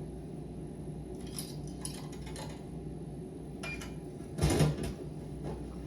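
Scattered light clicks and clinks over a low steady hum, with one louder knock about four and a half seconds in.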